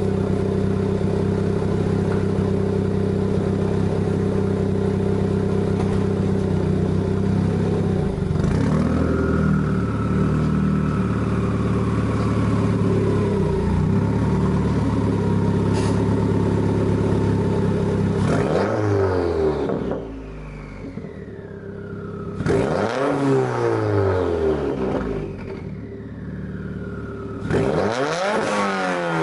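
Subaru WRX FA20DIT turbocharged flat-four, with Perrin headers, a catted Grimmspeed J-pipe and a titanium Tomei catback, held at a steady raised RPM, then revved sharply three times and let fall back. After each rev there is a falling whistle.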